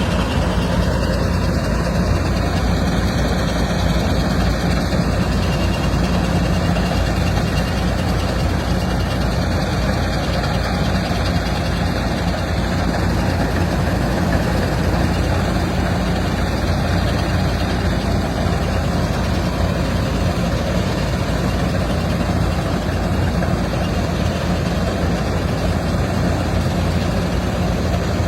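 Rice harvesting machine's engine running steadily, a constant heavy hum with mechanical noise and no change in speed.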